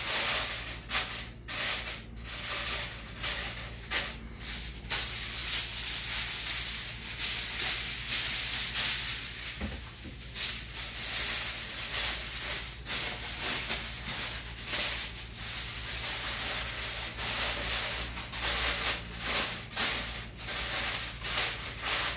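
Aluminium foil being crumpled and folded by hand into a cooking parcel: continuous irregular crinkling and rustling, over a steady low hum.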